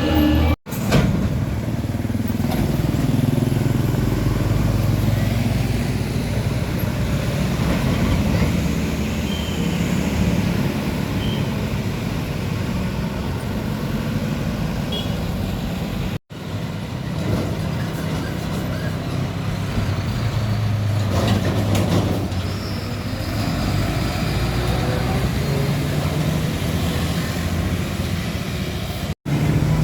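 Heavy trucks passing on a road, their diesel engines running with steady traffic noise, in short clips broken by two or three abrupt cuts.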